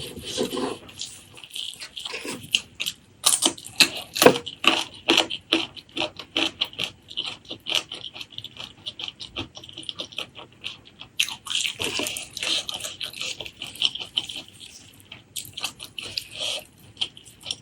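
Close-miked eating sounds of someone chewing a saucy meat curry with rice: wet smacking and chewing, a dense run of sharp sticky mouth clicks, thinning out for a few seconds midway.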